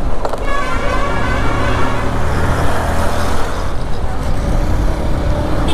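Motorcycle running steadily while riding along a city road, with a continuous low engine hum and surrounding traffic noise.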